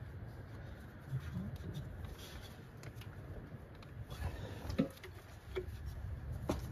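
A few light clicks and taps of hand tools and parts being handled, mostly in the second half, over a low steady background rumble.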